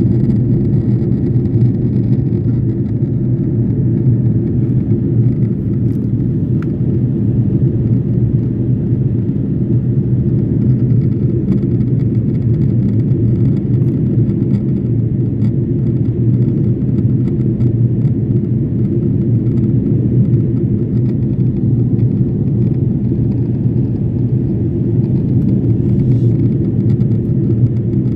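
Steady low rumble of a jet airliner's cabin during the descent before landing: engine and airflow noise heard from a window seat over the wing, unchanging throughout.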